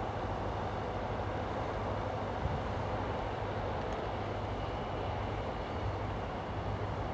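A 2TE10M diesel locomotive standing and running, its 10D100 two-stroke diesel engine giving a steady low drone.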